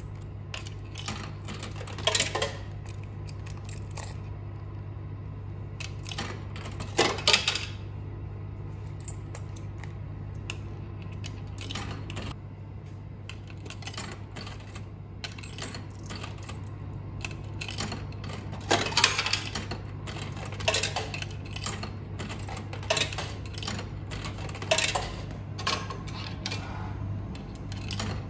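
Coins dropped one at a time into a retro noodle vending machine's coin slot, each giving a short metallic clink as it falls through the coin mechanism, several in quick succession near the end. A steady low hum runs underneath.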